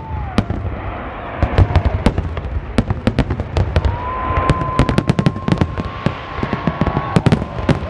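Fireworks display: many sharp cracks and bangs of bursting shells, one after another, over a continuous low rumble. A long steady whistle runs through the middle.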